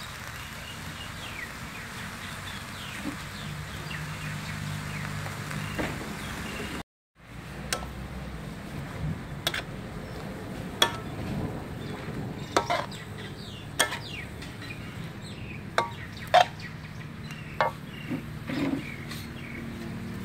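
Metal spatula clinking and scraping against a metal wok while stir-frying cabbage. After a short cut about seven seconds in, there are sharp, irregular knocks, over a steady background hiss.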